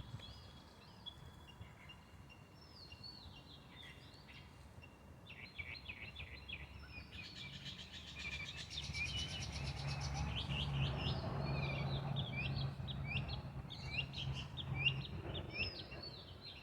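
Small birds chirping and twittering in short, repeated calls, with a burst of dense, rapid chatter in the middle. A low background rumble with a steady hum grows louder partway through.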